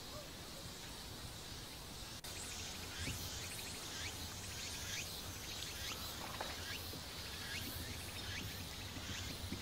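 Outdoor ambience: a soft steady hiss, then from about two seconds in, short repeated bird chirps over a high insect drone.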